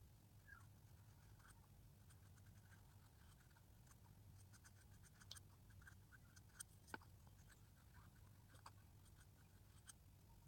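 Near silence over a low steady hum, with faint scratching and light ticks from a compact powder puff being dabbed and rubbed on the face.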